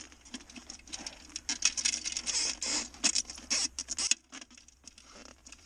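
Gloved hands rustling and handling frozen spruce branches and a tin-can marten set, a dense run of sharp crackles and scratches that dies down about four seconds in.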